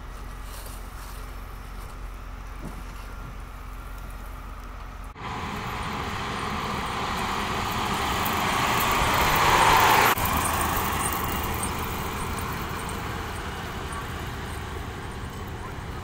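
Snowplow truck driving past with its blade pushing snow: a rush of engine and spraying snow that grows louder for about five seconds and cuts off suddenly. Before it, a quieter steady outdoor background; after it, steady road traffic noise.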